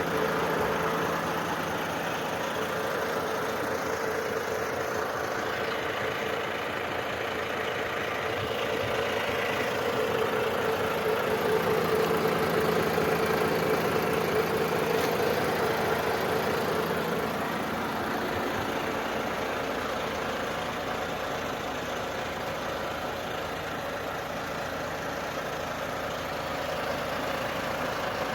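Engine of a Volvo work machine running steadily. It grows louder with a stronger hum for several seconds in the middle, then settles back.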